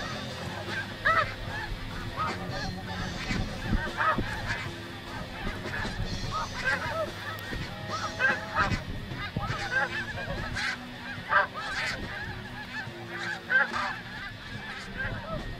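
A flock of snow geese calling: many short, overlapping honks, one after another, over the low rumble of gusty wind on the microphone.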